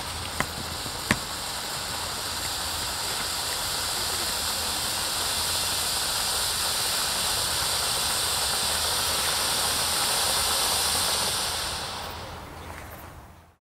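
Panda Vulkanix firework fountain spraying sparks with a steady hiss, with two sharp cracks in the first second or so. The hiss swells slightly, then dies away near the end as the fountain burns out.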